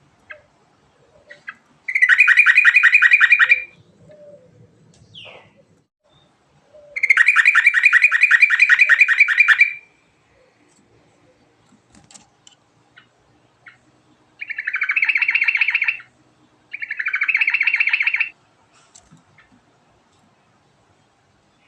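Yellow-vented bulbul (trucuk) singing in rolling phrases: four long, very rapid trills on a steady pitch, the second the longest, the last two close together near the end.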